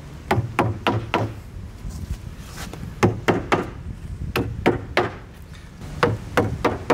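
Small hammer tapping staples the rest of the way into hardwood pallet timber through woven bulker-bag fabric. The taps come in quick runs of three or four, with short pauses between. The staples would not go fully in from the hand stapler because the wood is hardwood.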